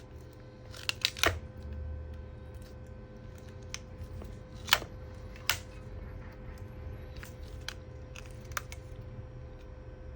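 Scattered sharp clicks and light taps from laptop parts and small tools being handled during a battery replacement, the loudest a couple of seconds apart, over a steady low hum.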